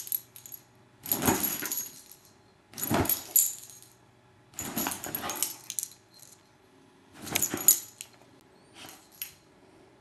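Metal tags on a vizsla puppy's collar jingling in five short bursts as the dog moves about on a bed, with bedding rustling under it.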